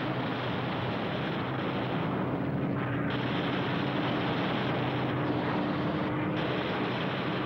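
Steady drone of propeller aircraft piston engines in flight, with a low engine hum holding a near-constant pitch.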